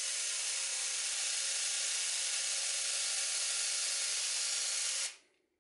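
Homemade battery-powered chainsaw knife running with a steady buzzing hiss as its saw blade cuts through a carrot. It stops shortly before the end.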